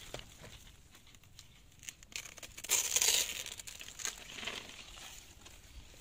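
Stiff pineapple leaves rustling and crackling as a pineapple is worked free of its plant by hand, with a louder crackling rustle about three seconds in and a shorter one near four and a half seconds, among scattered small snaps.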